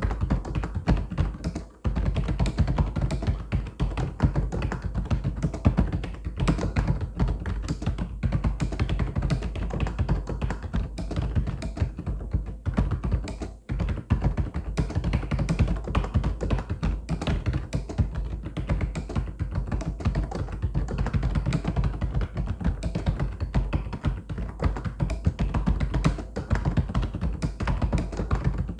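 Mechanical keyboard typing: a fast, continuous run of deep clacking keystrokes, broken by two brief pauses, one near the start and one about halfway through.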